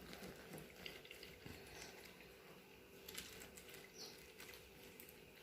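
Near silence: faint room tone with a few soft clicks about three seconds in and a short high squeak about four seconds in.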